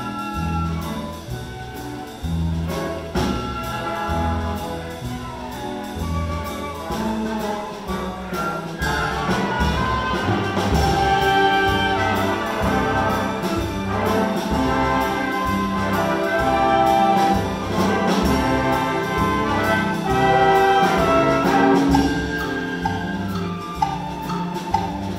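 Live pit orchestra playing instrumental dance music for the title number, with brass leading over a steady beat; it grows fuller and louder about a third of the way in.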